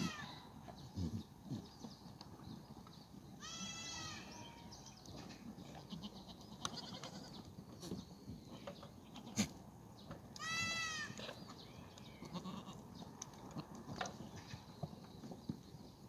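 Black goats bleating: two long, high bleats, one about four seconds in and another about eleven seconds in. A few sharp knocks come in between, the loudest about nine seconds in.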